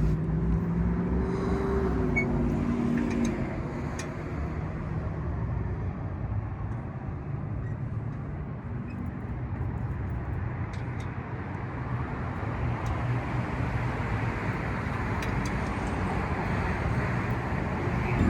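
Road traffic going by: a steady rush of tyres and engines, with a few faint clicks.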